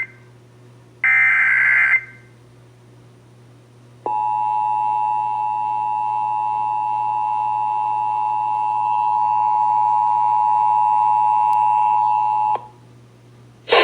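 Emergency Alert System SAME header data bursts: the tail of one, then a full one-second screeching burst about a second in, encoding a child abduction emergency (AMBER Alert). About two seconds later the steady two-tone EAS attention signal sounds for about eight and a half seconds and cuts off sharply, with a low hum underneath throughout.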